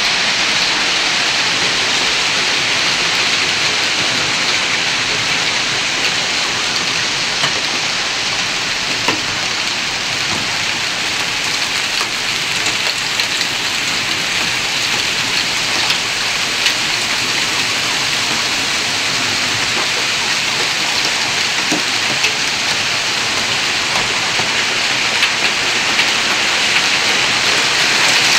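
Hailstorm: a steady, dense hiss of hailstones pelting the ground, with sharp clicks of single stones striking now and then.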